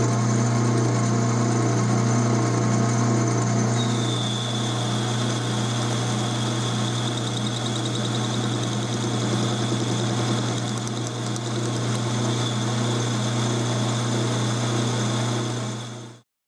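12-inch Atlas metal lathe running with a steady hum while a boring bar cuts inside the bore of a spinning part. A thin high whine joins about four seconds in, and the sound fades out near the end.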